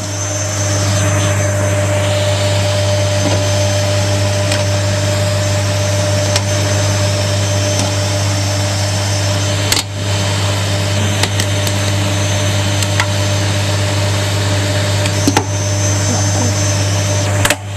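Zanussi washing machine running with its door open: a steady motor hum and the loud rushing noise of the turning drum, breaking off briefly about ten seconds in and again near the end.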